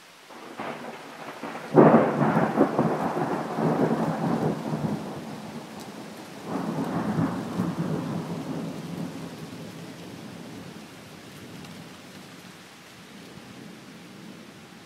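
Thunder: a loud, close clap about two seconds in that rumbles on for several seconds, then a second rumble swells up and rolls away, fading slowly. Under it runs a steady hiss of rain.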